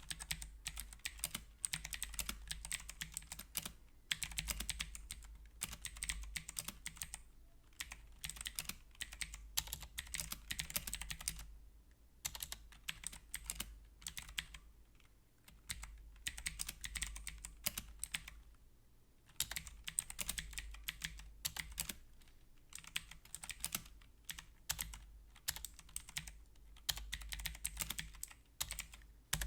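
Typing on a HyperX Alloy Origins mechanical keyboard with clicky blue switches: rapid runs of sharp keystroke clicks in bursts of a few seconds, with short pauses between them.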